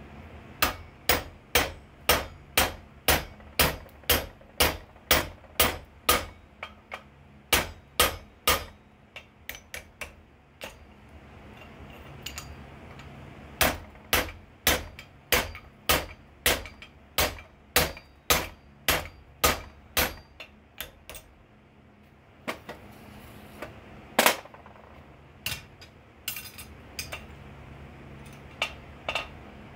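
A steel hand hammer striking a hot punch held on red-hot steel over an anvil, punching a hole in the stock. The blows come at about two a second in runs with short pauses between, and one heavier blow comes a little after the middle. A steady low hum runs underneath.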